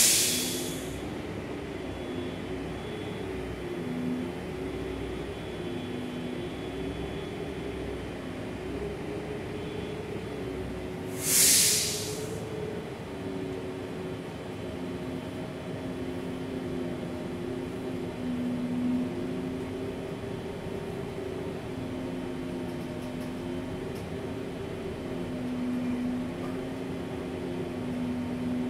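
Gillig low-floor city bus heard from inside the cabin, its engine running with a steady hum that wavers slightly in pitch. Two short, loud hisses of compressed air from the bus's air system come at the very start and again about eleven seconds in.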